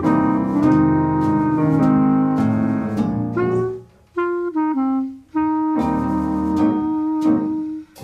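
Instrumental background music: a melody of held notes over accompanying chords. It breaks off briefly twice about halfway through.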